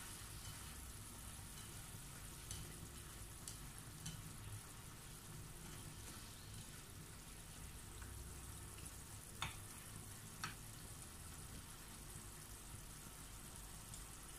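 String beans and pork simmering faintly in sauce in a nonstick frying pan while a spatula stirs them, with a few light clicks of the spatula against the pan, two of them louder about two-thirds of the way through. A steady low hum runs underneath.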